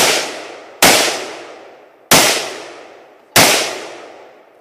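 AK-47 rifle (7.62×39 mm) fired in single shots: four shots about a second apart, each cracking sharply and then dying away over about a second.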